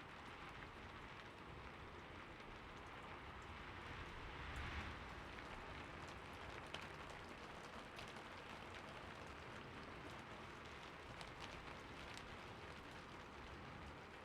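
Heavy rain falling steadily, an even hiss with scattered sharper drop ticks, swelling briefly about five seconds in.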